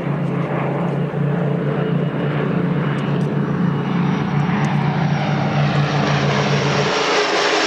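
Propeller aircraft engines running in a steady drone. Near the end the low hum drops away and a broad rushing noise grows louder.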